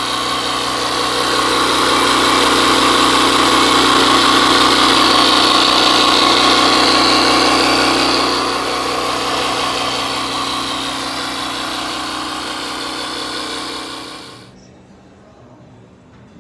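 Portable electric tyre pump running steadily with a loud buzz as it airs up a car tyre that has gone low, then switching off abruptly about fourteen seconds in.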